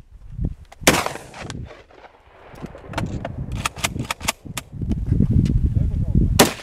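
Two rifle shots from a semi-automatic SKS carbine in 7.62×39, one about a second in and one near the end, each with a short echo trailing after it. Several fainter sharp cracks come in between.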